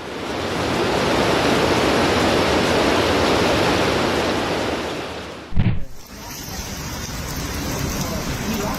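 Loud, steady rush of heavy water, storm rain or floodwater. About five and a half seconds in there is a short, heavy low thump, and the sound changes to lighter, steady rain.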